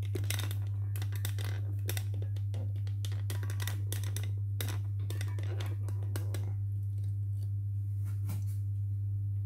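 Steady low electrical hum from a homemade induction-coil heater running on 8 volts, with irregular light clicks and ticks over the first six or so seconds that thin out near the end.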